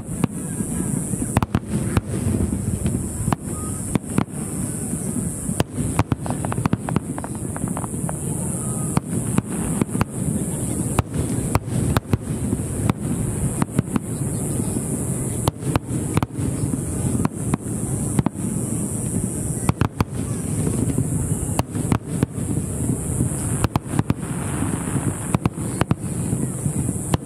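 Fireworks display: many sharp bangs and crackles in quick, irregular succession, over a steady low background rumble.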